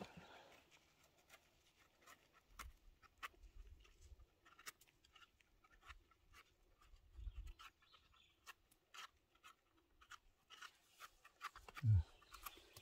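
Scattered small crackles and clicks of rustling and handling in forest-floor litter, with a couple of soft low thumps, and a brief low grunt from a person near the end.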